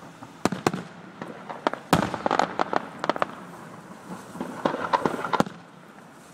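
Aerial firework shells bursting: a couple of sharp bangs in the first second, a loud bang at about two seconds followed by a run of crackling reports, and another cluster of bangs and crackle around five seconds.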